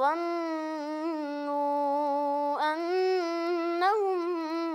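A boy's voice in melodic Quran recitation, drawing out one long vowel. The pitch slides up at the start, then holds with slight wavers, with a brief dip about two and a half seconds in and a short turn near the end.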